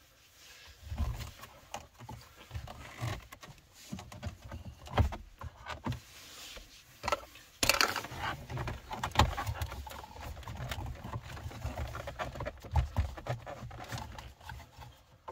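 A 2015 Hyundai Sonata's plastic dashboard trim being pried at and handled: irregular clicks, taps and knocks, with one louder, longer noise about halfway through.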